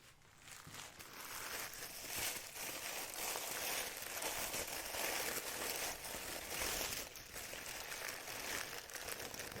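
Packaging crinkling as it is handled and unwrapped by hand, building up about a second in and going on in uneven rustles.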